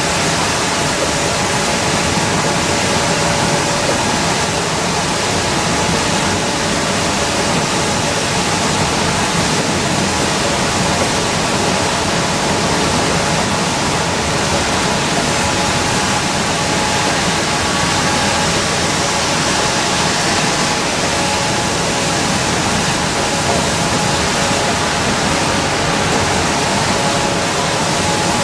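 Cabin noise of an Orion V transit bus at highway speed on wet pavement: a steady rush of tyre spray and road noise over the engine, with a faint steady whine.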